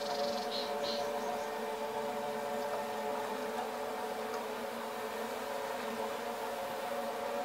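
A steady humming drone of several held tones that does not change.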